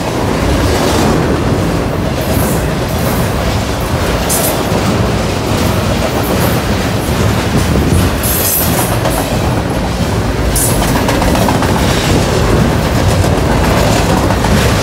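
Double-stack container cars of a BNSF intermodal freight train rolling past at close range: a loud, steady rumble of steel wheels on rail with clickety-clack. Short high-pitched bursts of noise come through a few times, around the middle.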